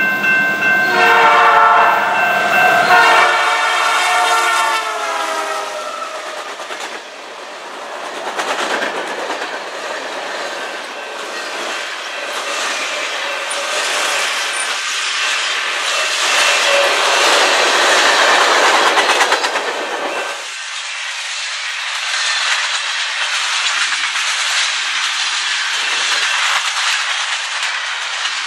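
A Canadian Pacific freight train's GE diesel locomotive sounds its horn at a level crossing. The chord falls in pitch and fades over the first few seconds as the locomotive passes. Then comes the steady rumble and wheel clatter of autorack and boxcars rolling past at speed.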